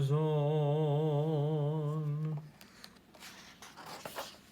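A man singing unaccompanied, holding one long low note with a steady vibrato that stops about two and a half seconds in. A few faint rustles and clicks follow.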